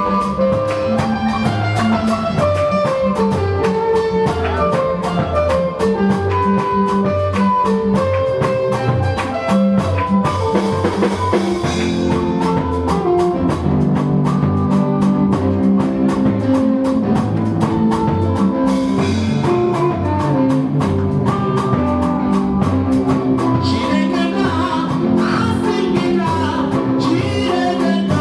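Live church praise band playing an upbeat passage, with drums keeping a steady beat under guitar. A woman's singing voice comes in near the end.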